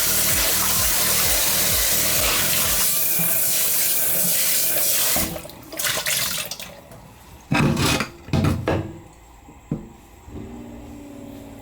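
Kitchen tap running hard into a sink for about five seconds, then shut off, followed by a few knocks and clatters.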